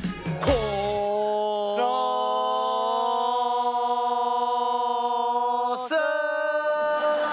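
Voices singing a cappella: a few short notes, then a long held chord for about four seconds that changes to a second held chord near the end.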